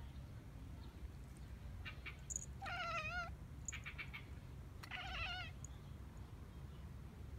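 American Shorthair cat giving two short, warbling meows about two seconds apart, crouched over a dragonfly it has just caught.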